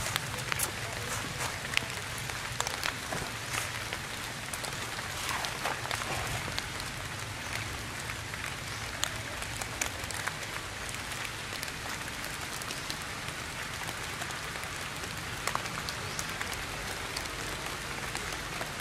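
Rain falling steadily on tree foliage: an even hiss with many scattered sharp drip ticks.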